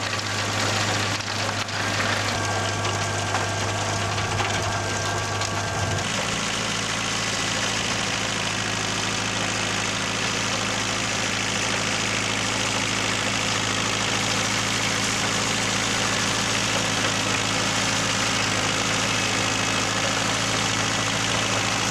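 Kubota compact tractor's diesel engine running steadily; about six seconds in its note changes and it keeps running evenly as the tractor drives across the field.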